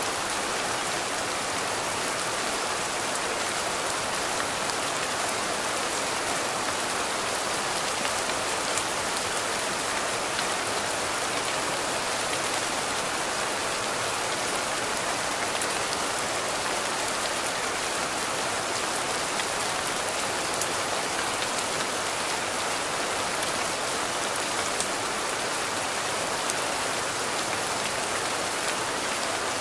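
Steady rain falling: a constant even hiss, strongest in the middle and upper range, with many faint ticks of individual drops and no change in strength.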